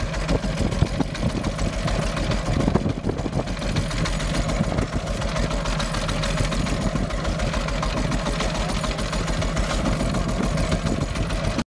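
Small fishing boat's engine running steadily with a fast, even chugging, under a rushing noise of wind and water at sea.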